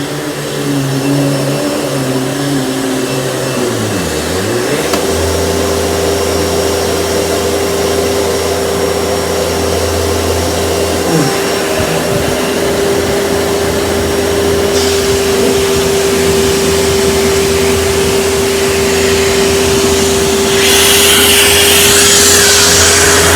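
Panasonic upright vacuum cleaner running on carpet, its motor making a steady whine. The pitch dips briefly about four seconds in and again around eleven seconds, and a louder hiss joins near the end.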